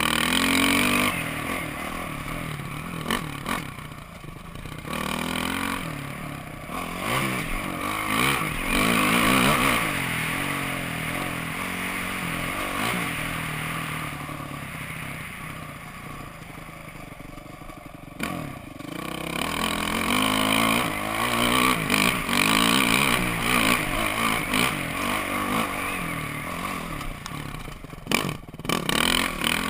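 Dirt bike engine ridden hard on a dirt track, heard from a helmet-mounted camera: the engine note rises and falls again and again as the throttle opens and closes, with noise and clatter over it. The level drops sharply twice, about two-thirds through and near the end.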